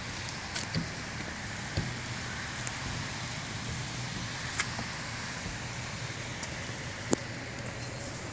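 A car engine idling with a steady low hum under an even hiss, with a few faint clicks and one sharper tick about seven seconds in.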